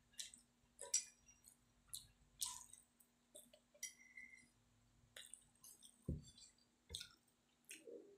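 Faint clinks and scrapes of a spoon and fork against a plate as the last of the food is gathered up, with two duller knocks about six and seven seconds in.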